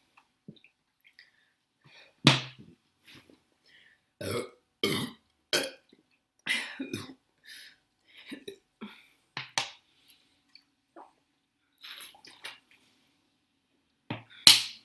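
A woman burping again and again, a string of short belches brought up by the carbonated cola she is drinking. The loudest burp comes near the end.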